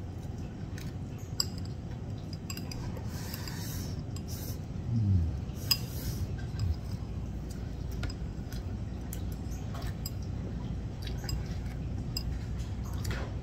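Chopsticks tapping and scraping against a ceramic rice bowl as a man eats from it, in scattered light clicks over a steady low room hum. A brief low falling sound comes about five seconds in.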